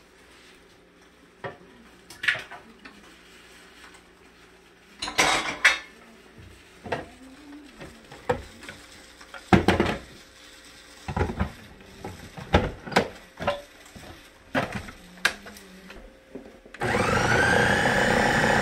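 Knocks and clatter of a blender jug and bowl being handled and filled. Near the end a Ninja countertop blender starts with a rising whine and runs loudly, blending eggs with bread-pudding batter.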